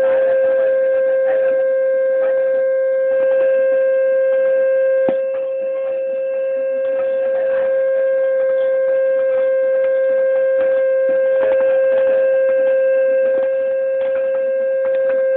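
A loud steady humming tone held at one unchanging pitch, with faint knocks and clatter beneath it and a single sharp click about five seconds in.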